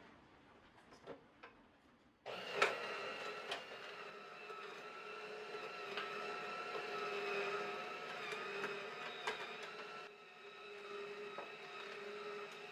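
A few light clicks, then an electric juicer's motor switches on abruptly about two seconds in and runs steadily with a whine.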